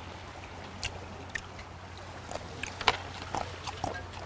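Chopsticks clicking against plates and a person chewing seafood, with one sharp click about three seconds in. A steady low wash of sea waves and wind runs underneath.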